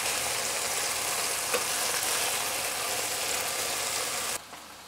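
Okra sizzling as it fries in oil in a stainless steel pan, a steady hiss while it is gently turned with a wooden spatula, with one light tap about a second and a half in. The sizzle cuts off suddenly near the end.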